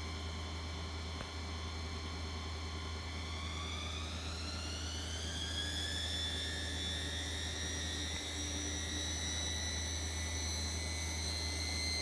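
Bosch Maxx 6 VarioPerfect washing machine spinning up: the motor's whine rises in pitch from about three seconds in and levels off a few seconds later over a steady low hum. The light whistle in it comes from newly replaced carbon motor brushes that are still bedding in, which the repairer says is normal and will go away.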